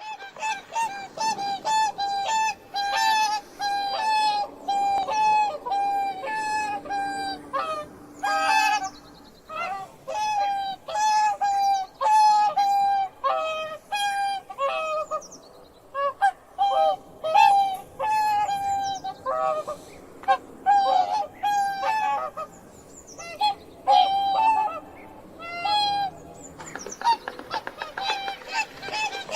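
Swans honking: a long run of short, repeated honks, some overlapping at two different pitches.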